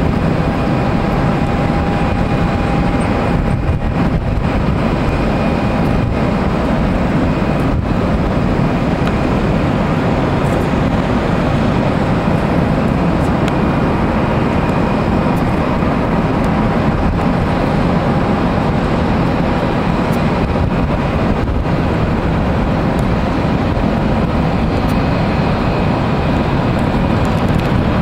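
Steady, loud rushing noise of an Airbus A320-214 jet airliner with CFM56 engines, landing and rolling out, with a faint whine in the first few seconds.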